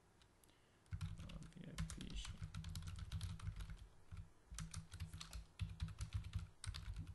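Typing on a computer keyboard: quick runs of key clicks start about a second in, with a brief pause midway.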